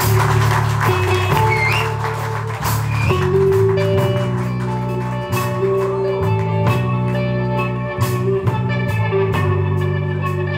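Rock band playing an instrumental passage with no vocals: electric guitar, keyboards and Hammond organ over sustained low notes, with cymbal hits every second or so.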